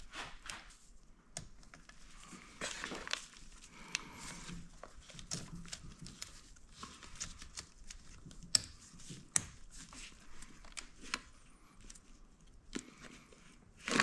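Faint rustling and scattered light clicks from gloved hands working on an injector wiring connector and wiring harness, with two sharper clicks a little past halfway.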